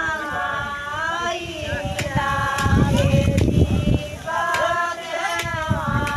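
Women singing a devotional song in long held notes, with a stretch of low thumping about halfway through.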